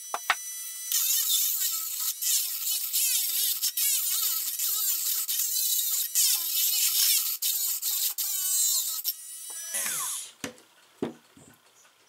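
Cordless Dremel rotary tool grinding a hole through glazed ceramic, a high whine whose pitch wavers up and down over a gritty hiss. It runs on a battery that was not fully charged and is short of power. The grinding stops about ten seconds in, followed by a few light knocks.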